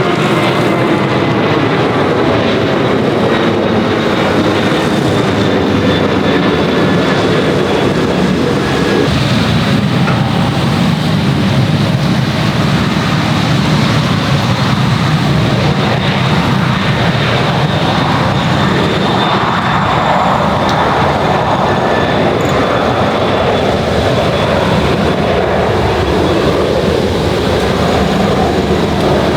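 Jet airliner noise: a loud, steady rushing sound, with faint falling whine tones fading out in the first second.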